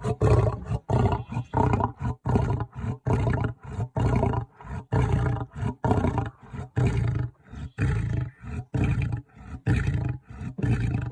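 Lion-like roaring in quick, chopped bursts, about two to three a second, steady in loudness throughout.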